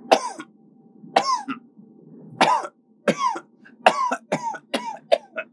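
A man coughing in repeated rough bursts, about a dozen, coming closer together in the second half; he is taken ill.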